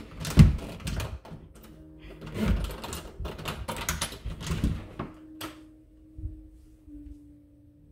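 A run of knocks, clicks and bumps as an interior door is opened and walked through, the loudest thump about half a second in; after about five seconds only a faint steady hum remains.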